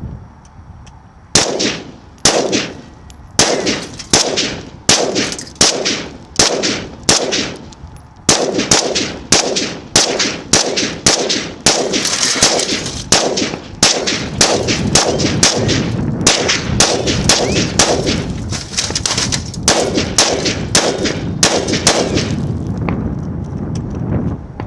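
Ruger AR-15 rifle in .223 firing a long string of about thirty single shots, each sharp crack trailing off. The shots come about a second apart at first, then quicken to roughly two a second, and stop near the end.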